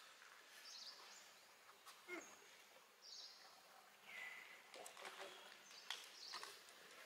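Faint outdoor ambience with a few short, high-pitched chirps spread through it and a held chirp about four seconds in, plus light crackles and clicks as a young macaque handles an empty plastic bottle.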